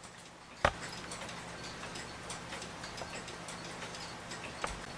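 Wind-up mantel clock from the New Haven Clock Co., its movement ticking steadily and faintly. A sharper click comes about two thirds of a second in and a lighter one near the end.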